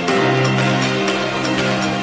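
Background music: held chords over a light steady beat, the bass note changing about a second in.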